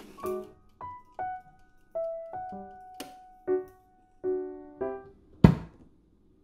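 Background music: a gentle electric-piano melody of single notes. About three seconds in there is a faint click, and near the end a loud sharp clack as the sandwich maker's plastic handle latch is gripped.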